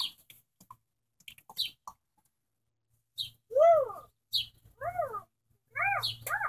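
A young girl's high wordless singing: a few short notes that rise and fall in pitch, with short high chirps between them.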